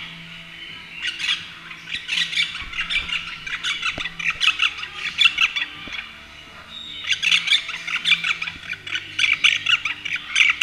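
Pet birds chattering with rapid high chirps and squawks in two long spells, with a short lull about six seconds in.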